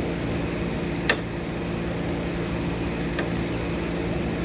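Hand-held cable cutters clicking sharply twice, about two seconds apart, as they are worked open and shut, over a steady mechanical hum.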